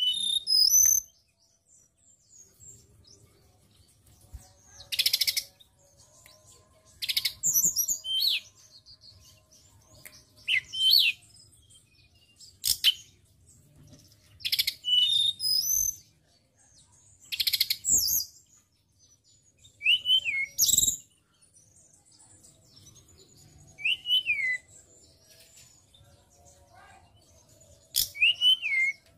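Male hill blue flycatcher (tledekan gunung) singing in short loud phrases every two to three seconds, mixing high whistled notes that rise and fall with sharp, harsh notes.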